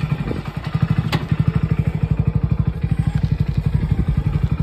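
Motorcycle engine running at low speed, its exhaust giving a fast, even low putter. There is a single sharp click about a second in.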